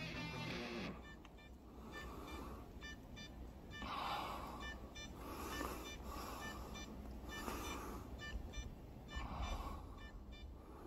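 Background music ends about a second in. Then a crashed drone caught high in a tree beeps over and over, a steady run of short high beeps from its lost-drone alarm, with bursts of rushing noise coming and going underneath.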